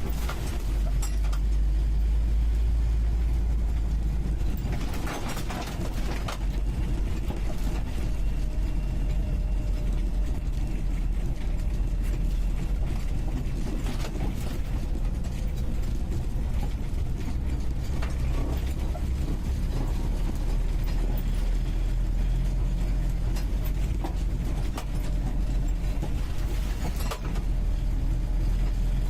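UAZ 469B's four-cylinder petrol engine running steadily under way, heard from the passenger seat inside the cabin, with a deep drone. Short rattles and knocks from the body come now and then as it drives over rough ground.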